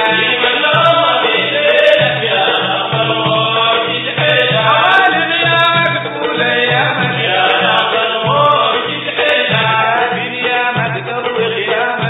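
Sudanese Sufi madeeh, a praise song to the Prophet, sung by chanting voices over a steady drum beat.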